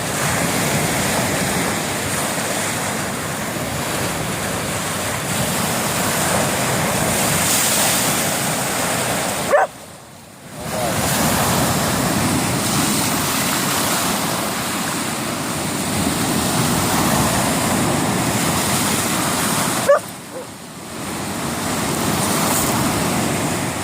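Steady rush of choppy sea surf and wind, with a dog giving a sharp bark twice, about nine seconds and twenty seconds in.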